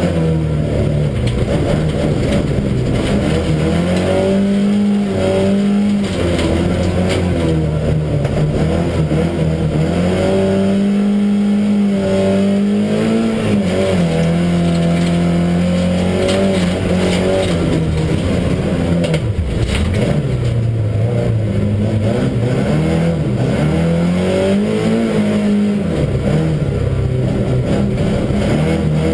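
Saab 99 folkrace car's four-cylinder engine heard from inside the cabin, revving up and falling back again and again as it is driven hard in a race, over a steady rush of tyre and road noise. About two-thirds of the way in the revs drop low briefly, then climb again.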